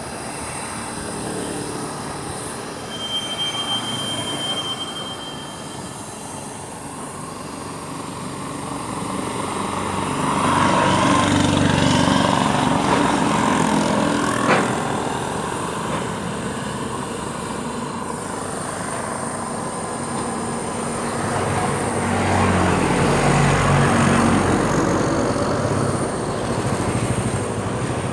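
Container freight train's wagons rolling past on the rails. It is a continuous rumble that swells twice, with a single sharp knock about halfway through.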